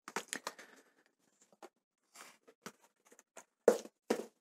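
Small cardboard knife box being handled: scattered light scrapes and clicks of the cardboard, with two louder taps near the end.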